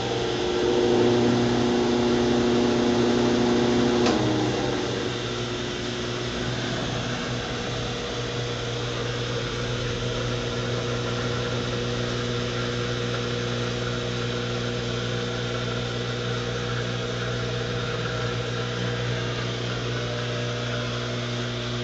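Consul Maré 7.5 kg washing machine spinning: a steady motor hum with a whine over it. About four seconds in, the louder whine drops away and the machine settles into a quieter, even hum. This is the strange noise during the spin that the owner took for a fault needing repair.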